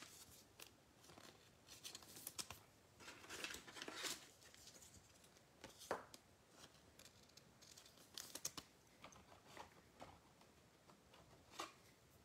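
Faint crinkling and rustling of trading cards and foil card packs being handled, in short scattered spells with a few soft clicks and taps.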